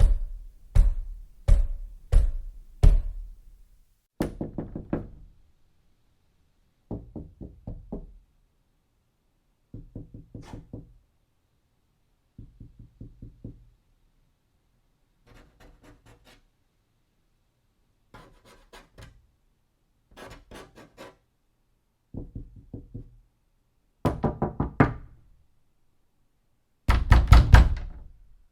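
Knocking on a door: five single heavy knocks about two-thirds of a second apart, then a run of short clusters of quick raps every two to three seconds. The clusters vary in loudness and tone, some thin and faint, and the last is the loudest.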